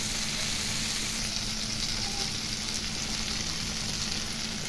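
Mixed vegetables sizzling steadily in oil and masala in a nonstick pan, the spices fully roasted (bhuna).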